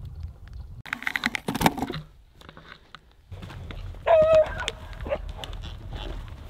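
A herding dog barking as it chases water buffalo: a couple of sharp, high barks, the loudest about four seconds in.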